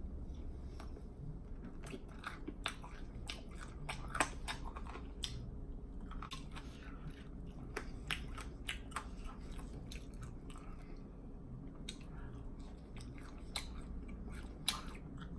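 A person chewing food with the mouth open, with wet lip smacking and irregular sharp clicks, a few of them louder.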